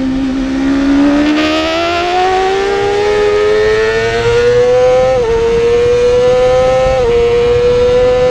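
Yamaha YZF-R6's 599 cc inline-four engine at full throttle out of a corner, revs climbing steadily to a high scream, then two quick upshifts, about 5 and 7 seconds in, each a brief dip in pitch before the revs climb again.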